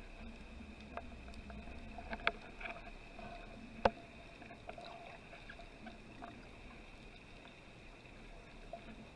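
Underwater ambience picked up by a diver's camera: a faint steady hiss and hum with a few sharp clicks, the loudest about four seconds in.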